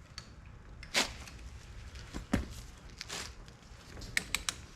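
Torque wrench working the rear axle nut: a few scattered clicks and knocks, then three quick ratchet clicks near the end.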